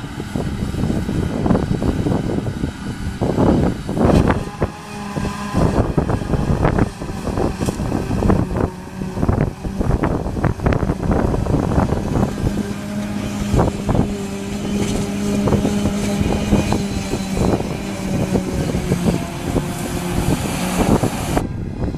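Claas Jaguar 850 forage harvester and the tractors hauling alongside it running steadily while harvesting heavy grass silage. A steady machine hum comes in about five seconds in. Strong wind buffets the microphone throughout.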